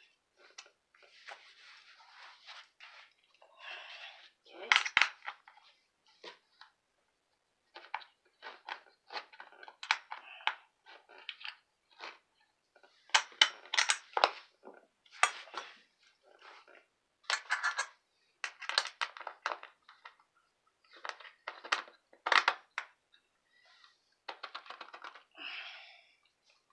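A hand screwdriver turning Phillips-head screws into a chair's metal mounting brackets, as screws are tightened down. It makes irregular short clicks, clinks and rattles of metal on metal, with a few brief scraping rustles.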